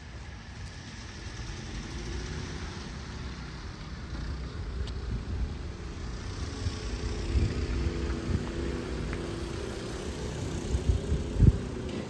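A motor vehicle's engine running steadily and growing louder as it draws near, over a low road rumble, with a couple of low thumps near the end.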